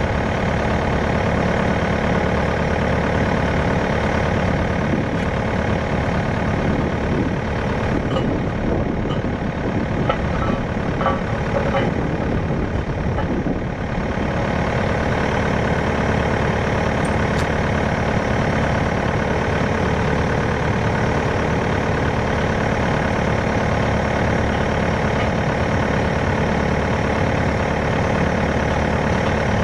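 Kubota KX080-3 excavator's diesel engine idling steadily, with a few light clicks of work over it.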